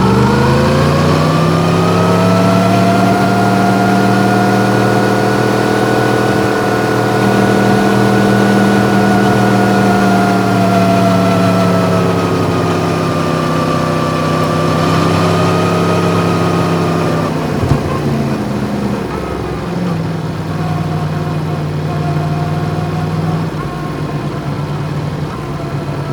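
Yamaha MT-10's crossplane inline-four engine rising in revs at the start, then running at steady revs under way. About two-thirds through there is a short sharp knock, and the engine settles to a lower, steady pitch.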